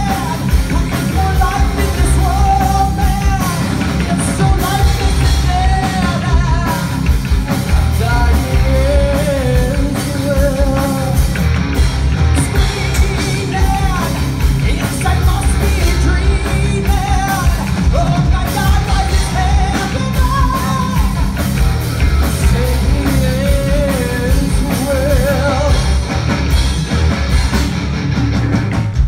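Live progressive metal band playing: a vocalist sings over electric guitar, electric bass and drums, with a heavy bass end, heard from within the audience.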